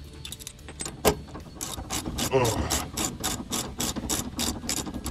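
Hand ratchet wrench clicking in a quick even run, about five clicks a second, as a sway bar bracket bolt is run down. A single sharp knock comes about a second in.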